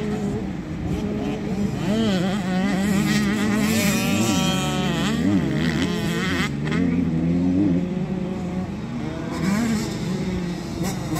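Several motocross bike engines revving up and down as they ride the dirt track. About four to five seconds in, one bike's pitch drops steeply as it backs off.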